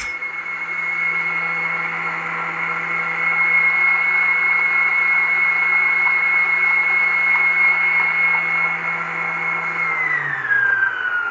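Gorenje stand mixer's motor running at a steady speed with a high whine, beating cookie dough until the sugar dissolves. There is a click at the very start, and about ten seconds in the whine falls in pitch as the mixer is switched off and spins down.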